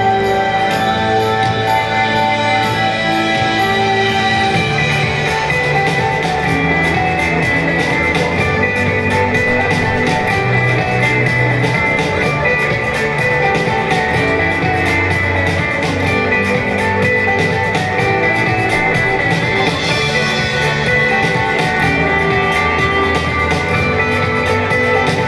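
Rock-style music with guitar, played continuously.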